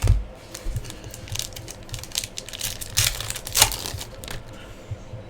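Trading cards and their wrappers being handled: a thump at the very start, then a run of light clicks and taps with crinkling rustles, loudest about three to four seconds in.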